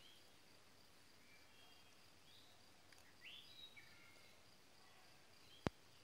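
Faint outdoor ambience: scattered short bird chirps over a steady high-pitched insect drone, with one sharp click near the end.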